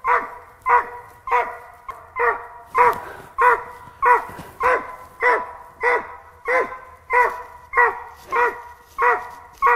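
Squirrel dog barking treed at the base of a tree: an unbroken run of evenly spaced single barks, about one every 0.6 seconds. This steady tree bark is the dog's signal that it has a squirrel treed.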